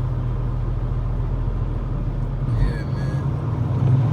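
Semi-truck engine running with a steady low drone inside the cab as the truck moves slowly through snow. A brief faint higher-pitched sound comes in about two and a half seconds in.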